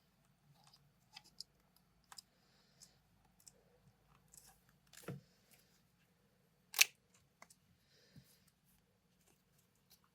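Small plastic-and-metal handling clicks and light rustles as an on-camera shotgun microphone and its mount are assembled, with a dull knock about five seconds in and one sharp, louder click about two seconds later.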